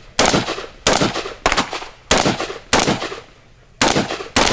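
Gunfire on a shooting range: about seven shots at an even pace, roughly two-thirds of a second apart, each with a short echoing tail, then a longer gap before two final shots near the end.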